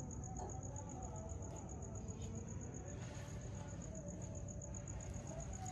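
Faint ambience: a steady, rapidly pulsing high trill of a cricket over a low background rumble.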